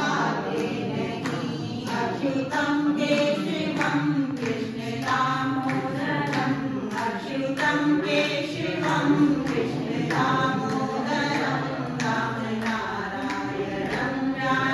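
A small group of women singing together unaccompanied, keeping time with steady hand claps about two a second.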